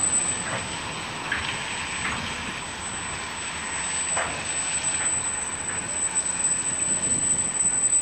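Ballast train wagons rolling slowly past with a steady noisy rumble and scattered knocks, as the ballast plough wagon drags its blade through loose ballast stones.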